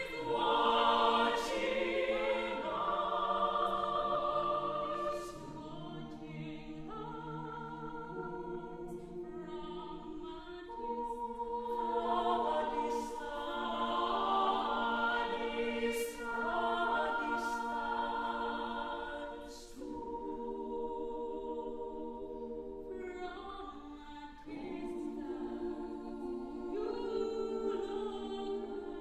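Mixed choir of men and women singing in harmony, holding sustained chords that shift every second or so, with a few softer passages that swell again. Sharp 's'-like consonants sound now and then.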